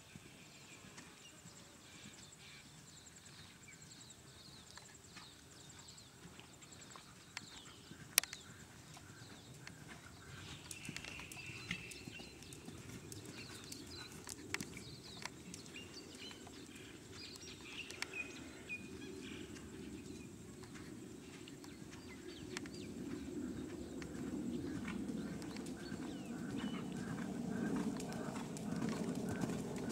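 Hoofbeats of a ridden horse on a sand arena, faint and muffled, with a sharp knock about eight seconds in. Faint birdsong comes through in the middle, and a low rumble grows louder in the second half.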